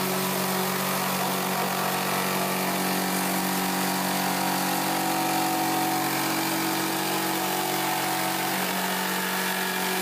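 Handheld electric jigsaw running steadily as it cuts a hole through a plastic cooler lid.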